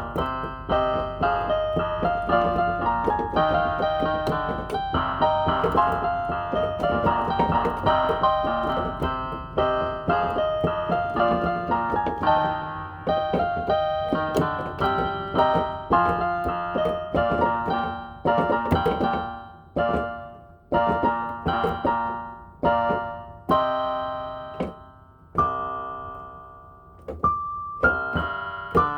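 Inexpensive electronic keyboard played with a piano voice: a melody over chords in busy, quick passages, then, from about two-thirds in, slower separate chords left to ring and fade.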